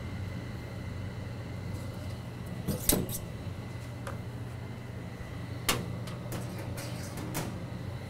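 Furnace indoor blower running steadily with a low hum, moving air through the ducts. A few sharp knocks and clicks come from the static pressure probe and its tubing being handled against the sheet-metal ductwork, the loudest about 3 s in and another just before 6 s.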